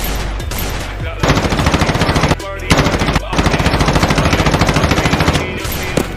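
Machine-gun fire sound effect: rapid shots in bursts, starting about a second in, with a short break near the middle, then running on until shortly before the end.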